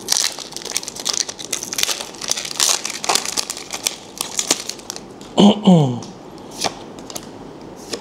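Foil booster-pack wrapper crinkling and tearing as it is ripped open and pulled apart, then the cards inside being handled. About five and a half seconds in, a short vocal sound falls in pitch, louder than the crinkling.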